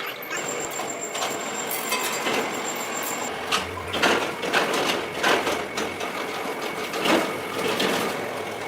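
Machine-shop working noise: a machine running steadily, with irregular knocks and scraping of metal that come thickest in the second half.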